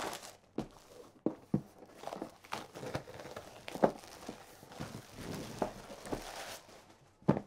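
Plastic shrink-wrap being cut and peeled off a cardboard game box, crinkling and rustling with scattered sharp clicks and taps.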